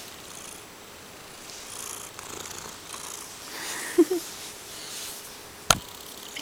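Tabby-and-white house cat purring while it rubs against the camera, its fur brushing over the microphone. A brief pitched squeak comes about four seconds in, and one sharp knock near the end.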